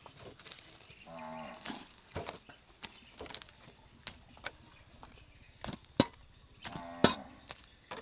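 Metal tongs clicking and clinking against a wire grill rack and a stainless steel plate as grilled shrimp are lifted off and set down, in irregular sharp knocks, the loudest near the end. Two brief low vocal sounds, one about a second in and one near the end.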